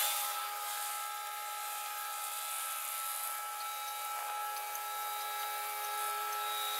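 A train passing a railroad crossing: a steady rushing hiss of wheels on rail with several steady whining tones held throughout.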